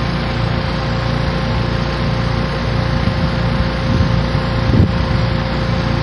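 Outdoor unit of a 1988 Tempstar R-22 heat pump running steadily: the compressor humming under the whirr of the condenser fan, in cooling mode while it is recharged with refrigerant. A brief knock comes about five seconds in.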